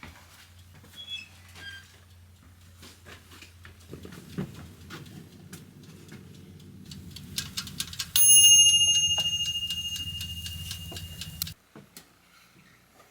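Mechanical kitchen timer ticking, then its bell ringing loudly with a rapid flutter for about three seconds. It signals that the cooking time is up, and the ring cuts off suddenly.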